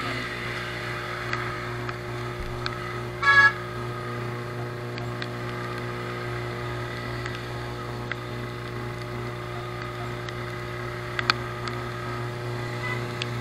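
Bajaj Pulsar 135LS motorcycle's single-cylinder engine running steadily, heard from the bike while riding. About three seconds in comes one short, loud vehicle horn toot.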